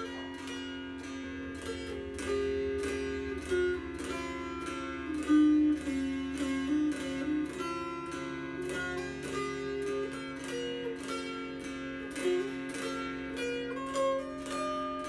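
Black walnut mountain dulcimer played solo: a tune strummed over a steady drone, the melody moving above it with quick, frequent strokes.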